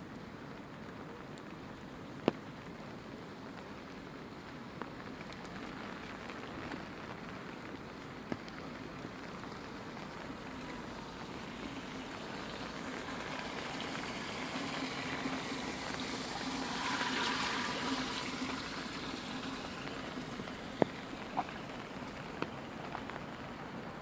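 Steady rain falling, with a few sharp ticks scattered through it. A rushing water noise builds to a peak around the middle and then eases off again.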